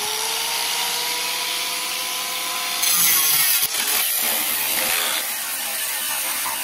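Angle grinder running up to speed with a rising whine, then its wheel biting into a chromed steel bumper about three seconds in: the grinding noise gets louder and harsher and carries on steadily.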